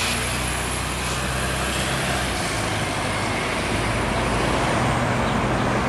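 Steady road-traffic noise with a low, even engine hum.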